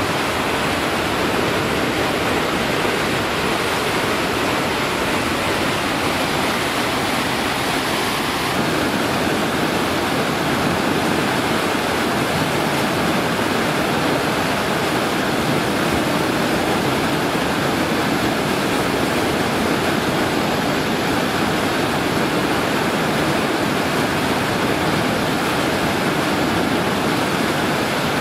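Whitewater rapids: a river rushing steadily and loudly over rocks.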